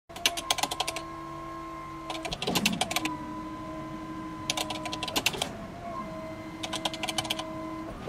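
Four short runs of rapid keyboard-typing clicks, about two seconds apart, over a steady chord of held tones: a typing sound effect for the title text appearing on screen.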